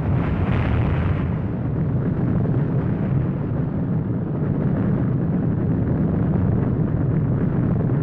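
Explosion sound effect standing for the nuclear power plant blowing up. A loud, steady low rumble, with a brighter hissing layer that falls away about a second in.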